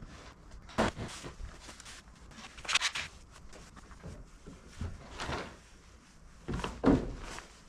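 Irregular knocks, thuds and scuffs of rough-sawn maple slabs being handled and set down, with footsteps between them.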